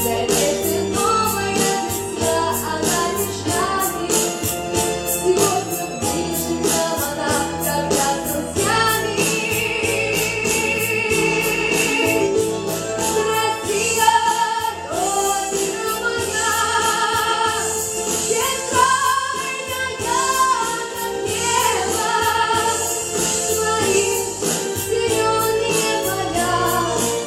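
A song sung with held notes over a musical accompaniment with a steady beat.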